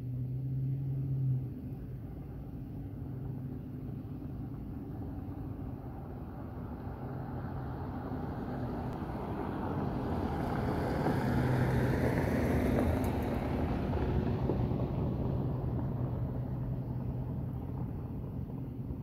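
A steady low hum, with a vehicle passing by that grows louder, peaks about twelve seconds in, and fades away.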